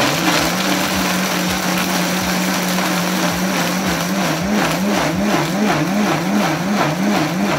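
Countertop blender running, grinding toasted groundnuts and uziza seeds with water into a paste. The motor hum holds steady, then from about halfway starts to waver up and down in pitch two or three times a second.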